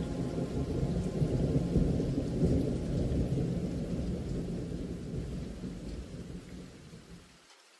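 Low rolling thunder over rain from a storm soundtrack. It swells over the first few seconds, fades away, and cuts off suddenly shortly before the end.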